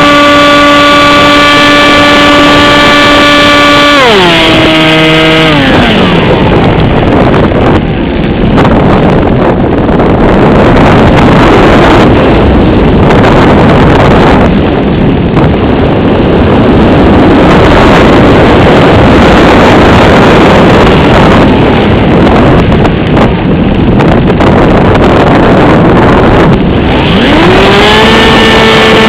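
Electric motor and propeller of an AXN foam radio-control plane, heard from onboard: a steady whine that winds down in pitch about four to six seconds in as the power comes off. The plane then glides with loud wind rushing over the microphone, and the motor whine rises back up near the end.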